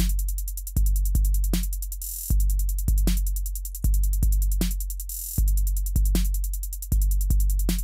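A trap drum beat from Maschine drum samples plays in a loop. Deep, long bass hits sit under a fast, even run of hi-hat ticks, with a sharper snare or clap hit about every one and a half seconds.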